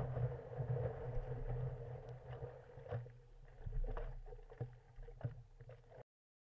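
Sea water rushing and splashing against a stand-up paddleboard, heard close up from its nose, with sharp splashes of paddle strokes in the second half. The sound cuts off suddenly to silence about six seconds in.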